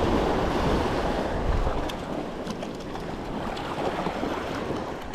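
Surf washing onto a sandy beach, with wind buffeting the microphone; the wash is louder for the first couple of seconds, then eases.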